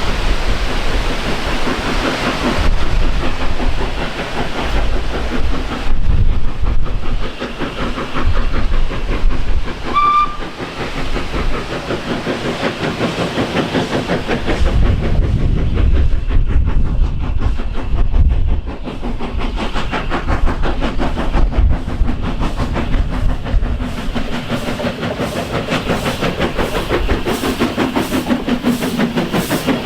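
Steam locomotive working a freight train past, with a steady hiss and rumble. There is a brief whistle toot about ten seconds in, and a regular beat in the last few seconds as the train goes by.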